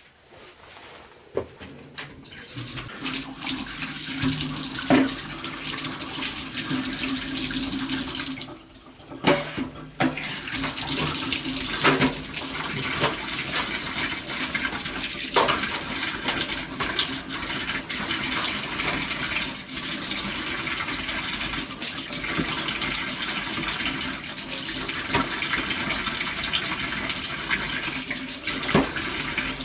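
Running water, pouring or spraying steadily. It builds up over the first couple of seconds and breaks off briefly about nine seconds in, with a few knocks scattered through it.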